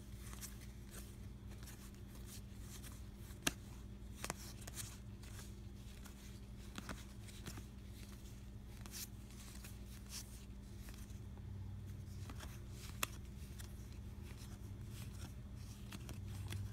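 Game cards being leafed through by hand: faint soft rustling and light card clicks, with a few sharper snaps, over a low steady hum.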